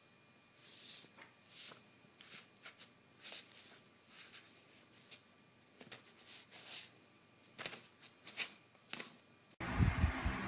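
A cat's paw patting and scraping at sheets of printer paper: a string of short, irregular paper rustles. About a second before the end it cuts to a louder low rumbling hum with thumps.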